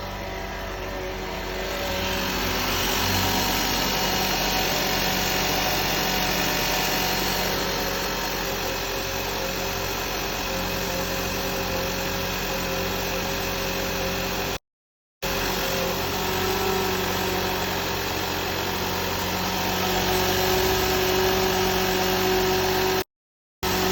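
2012 Nissan Serena C26 engine running with a steady, motor-like whine from its alternator. It is an early-stage alternator noise that the dealer traced to the alternator. The sound cuts out completely twice for a moment.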